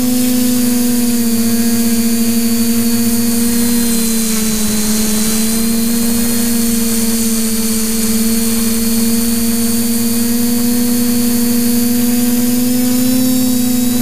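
TBS Discovery quadcopter's motors and propellers buzzing in flight, heard from the GoPro mounted on the frame: a steady tone with a high hiss above it, sagging a little in pitch about four to five seconds in and then holding.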